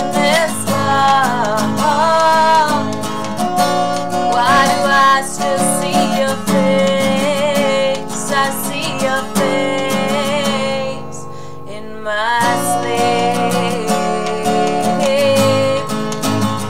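A woman singing while strumming an acoustic guitar, with a brief softer moment about eleven seconds in.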